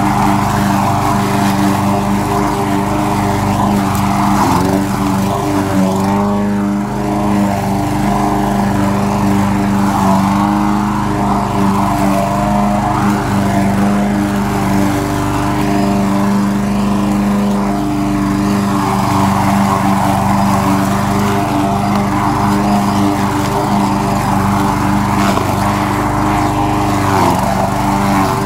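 Troy-Bilt push lawn mower's small petrol engine running steadily while cutting grass, heard close up from the handle. Its pitch wavers briefly about five seconds in and again near the end.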